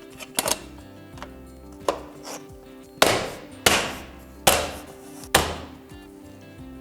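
Snap-on trim pieces being knocked into place on their clips: a few light clicks, then four loud sharp knocks a little under a second apart, over steady background music.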